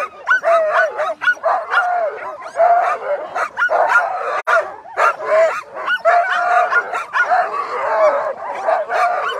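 A team of Alaskan husky sled dogs barking and yelping all at once without let-up, harnessed at the start line: the eager pre-start clamour of dogs keen to run.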